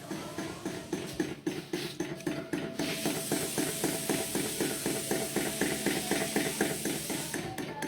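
Flame-driven table fan's small engine running with a quick, even chuffing beat, about five strokes a second, with a steady hiss joining in about three seconds in and stopping shortly before the end.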